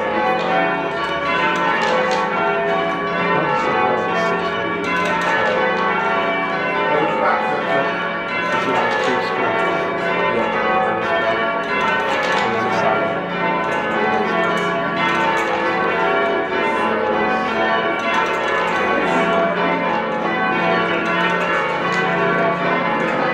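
A ring of church bells being rung down, many bells striking in quick, overlapping succession with no break as their swing is shortened to bring them to rest.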